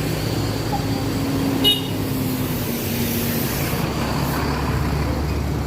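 Road traffic: a motor vehicle's engine running steadily, with a brief sharp high chirp about a second and a half in.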